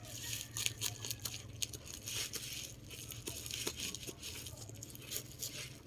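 Parcel packaging being crinkled and torn at by hand while being opened: a scatter of small rustles and clicks.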